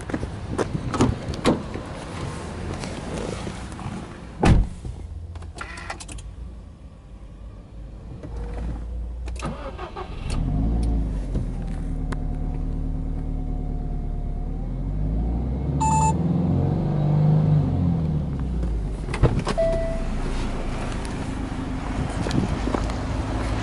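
Door handling and a loud door-shut thump about four and a half seconds in, then, about ten seconds in, a Subaru Impreza WRX STI's turbocharged flat-four engine is started from cold and settles into a steady idle, its revs rising and falling briefly a couple of times. A short electronic chime sounds partway through the idle.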